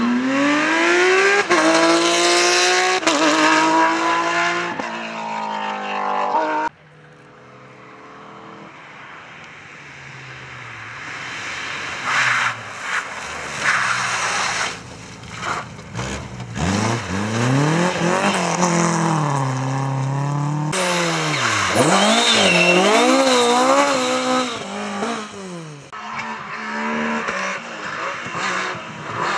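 Rally cars at full throttle on a tarmac stage, one after another with cuts between them. First a Porsche 911 GT3's flat-six revs hard, climbing through gears. Then an Opel Manta approaches from quiet, revving through gear changes, followed by more cars passing and a BMW 1 Series rally car.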